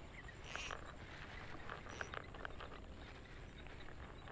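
Faint, irregular clicks and ticks from a spinning rod and reel being handled, over a low steady rumble.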